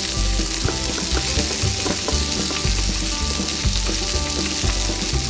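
Sizzling sound effect of an egg frying in a pan, steady throughout, with soft background music underneath.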